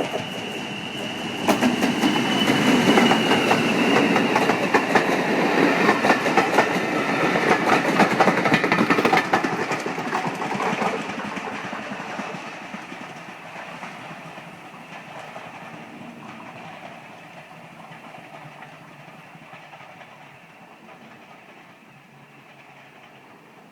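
Train passing on a heritage railway, wheels clattering over rail joints, loudest for the first ten seconds or so and then fading away as it recedes. A thin high whine is heard in the first few seconds.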